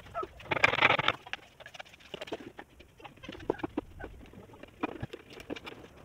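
Plastic soda bottle being fitted onto a wooden stick: a loud crinkling, scraping rush about half a second in, then scattered clicks and taps as the bottle and a screwdriver are handled to screw the bottle neck to the stick.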